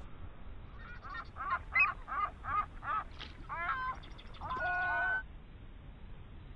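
A quick run of short, nasal, quack-like calls, about eight of them, followed by a longer held call that cuts off about five seconds in.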